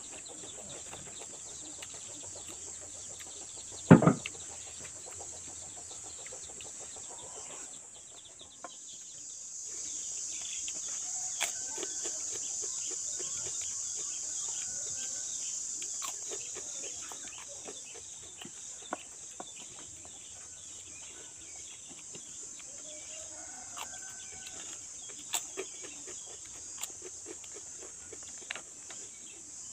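Chickens clucking now and then over a steady high hiss, with small clicks from eating by hand. There is one sharp knock about four seconds in, and the hiss grows louder about nine seconds in.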